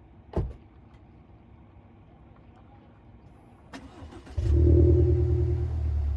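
A single thump about half a second in; near four seconds in, a short starter crank and the Subaru Levorg's CB18 1.8-litre turbocharged flat-four catches and settles into a loud, steady idle. It breathes through an STI Performance Muffler, which brings out the old-style unequal-length boxer burble.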